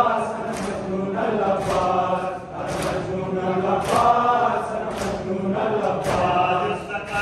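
Many men chanting a noha together in unison, with the slaps of matam, hands striking bare chests in time, landing together about once a second.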